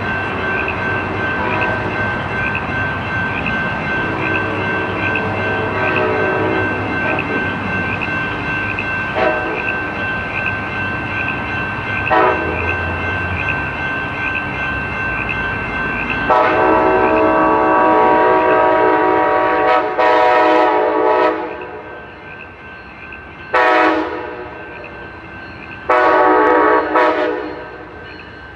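A train rumbling steadily along the rails, then sounding its multi-chime air horn in the grade-crossing pattern of two long blasts, one short and one long. The horn is the loudest sound, and the rumble fades between the blasts.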